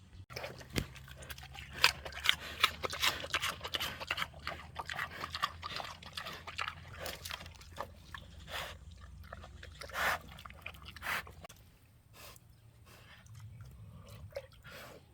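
A pregnant sow eating food scraps: quick, wet chewing and crunching, dense for most of the time and thinning out to a few bites near the end.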